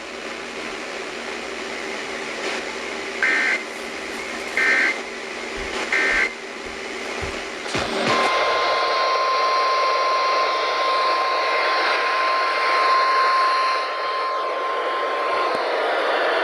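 NOAA Weather Radio Emergency Alert System signal over radio hiss: three short warbling two-tone SAME header data squawks about 1.3 seconds apart, then, about halfway through, the steady 1050 Hz warning alert tone held for about seven and a half seconds. This sequence marks the start of a new warning broadcast.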